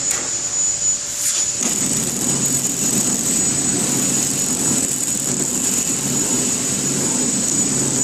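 KT-250D horizontal flow-wrap packing machine running with a steady mechanical hum that starts after a click about a second and a half in, over a constant high whine. It is being jogged while its cutter position is set.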